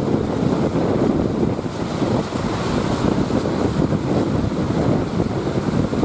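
Strong wind buffeting the microphone over the rush of breaking surf, a loud, uneven, rumbling roar with no clear pitch.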